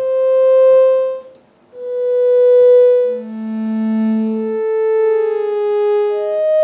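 Home-made HTML5/JavaScript tone synthesizer playing a series of single notes, a mix of sine and sawtooth waves, each swelling in over about a second and then fading, with a somewhat violin-like bowed sound. The notes follow one another at different pitches, slightly overlapping, with one noticeably lower note near the middle.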